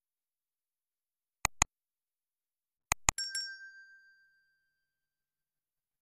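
Intro sound effect over dead silence: two quick clicks, then a rapid cluster of clicks ending in a bright ding that rings out and fades over about two seconds.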